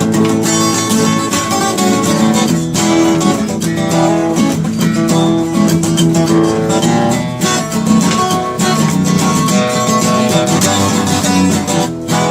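Live blues music: a guitar-led instrumental passage with no singing.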